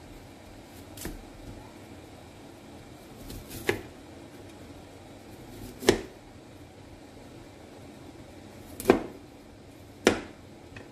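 Kitchen knife cutting through broccoli and knocking on a cutting board: five separate chops, spaced a second or more apart, the third and fourth the loudest.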